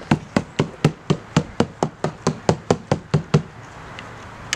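A marker tip tapped rapidly against the car's surface, dabbing on dots: a quick, even run of sharp taps, about four to five a second, that stops about three and a half seconds in.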